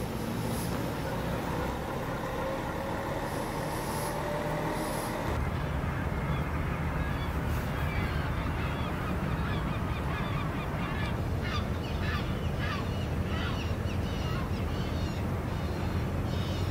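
A coach's engine running as it drives by, with a few short hisses. After about five seconds the sound changes to a steady low wind rumble, over which birds call in many short, repeated cries through the second half.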